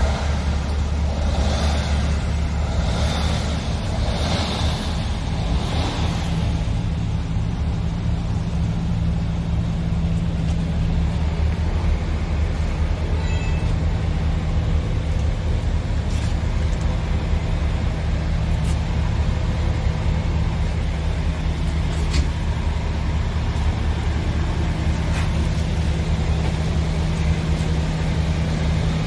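Scania R tractor unit's diesel engine idling steadily, with a few short hissing puffs in the first six seconds and a few faint clicks later.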